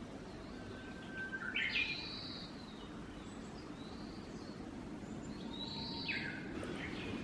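Japanese green woodpecker (aogera) singing: two short phrases a few seconds apart, each with notes stepping sharply up in pitch, over a steady low background noise.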